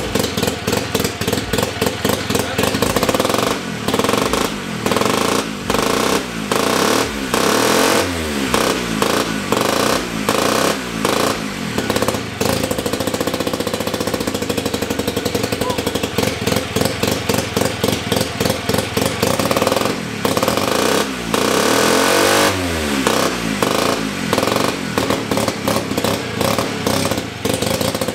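A freshly rebuilt Sachs KC27 294cc single-rotor Wankel engine from a Hercules W2000 motorcycle, running on its own with a fast, uneven pulse. It is revved up and back down twice, about eight and twenty seconds in.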